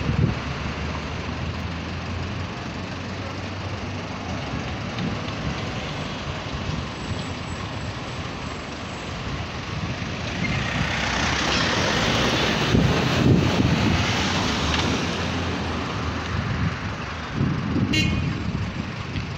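Street traffic: cars and a van driving through an intersection, the sound swelling as one passes close about halfway through. A brief sharp sound stands out near the end.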